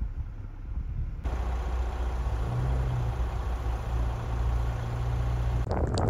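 A vehicle engine idling: a steady low hum that comes in abruptly about a second in, over a background hiss.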